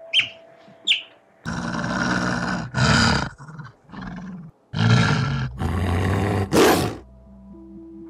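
Two short high chirps from an otter in the first second, then a wolf growling and snarling in a run of loud, harsh growls for about five and a half seconds.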